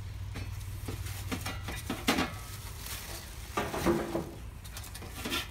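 Stainless steel chafing dish pans being handled in a cardboard box: plastic wrapping crinkles and the metal knocks and clatters irregularly, loudest about two seconds in and again near four seconds.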